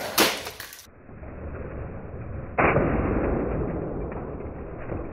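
A Lego Technic Land Rover Defender model slams into a Lego Technic Ford Raptor model. A brief clatter at the start and a growing muffled rolling noise lead to a sudden loud crash about two and a half seconds in, followed by a fading rattle of plastic pieces scattering.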